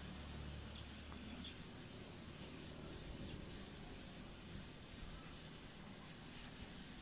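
Faint outdoor ambience with a steady, high-pitched chirping trill in the background, pulsing slightly louder and softer. A low hum underlies the first two seconds or so.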